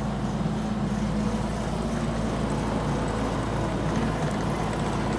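Skid steer engine running steadily under a mowing attachment, an even low drone with no change in pitch.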